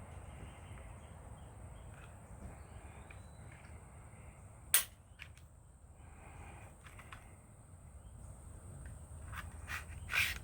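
A few sharp clicks and knocks of pistol parts being handled on a work surface: one about halfway through, several lighter clicks near the end, then another knock, over a faint steady low hum.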